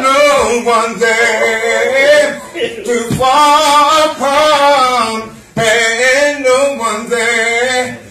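A man singing unaccompanied in a soulful R&B style, holding long notes with a wavering vibrato. The phrases break for a breath about three seconds in and again about five and a half seconds in.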